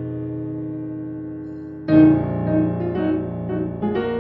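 Solo piano music, a silent-film-style accompaniment: a held chord slowly fades, then a loud new chord is struck about two seconds in and is followed by a quick run of notes.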